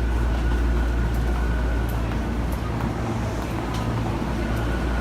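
Electric commuter train at the platform, a steady low rumble with a faint high whine over it.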